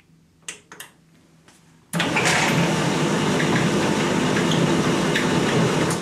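Two light clicks, then about two seconds in a Laden tumble dryer starts up, its drum and fan motor running with a steady low hum under a rush of air and light rattling. It is the dryer's first run after its control board was replaced.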